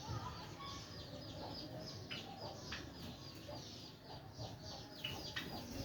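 A flock of Java sparrows chirping, many short high calls overlapping several times a second.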